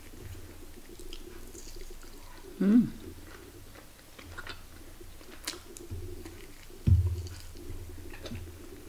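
Close-up mouth sounds of chewing and biting chicken meat off a bamboo skewer, with small wet clicks. A brief hum of the voice comes about a third of the way in, and a single low thump comes a little past the middle.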